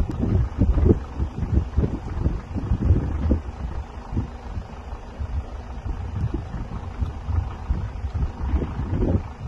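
Wind buffeting a phone's microphone outdoors: irregular low rumbling thumps with a faint hiss above.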